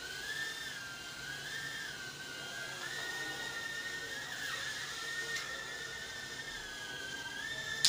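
Mini quadcopter drone flying, its tiny propeller motors giving a high whine that steps up and down in pitch as the throttle changes. At the very end a sharp knock cuts the whine off as the drone strikes the ceiling and drops.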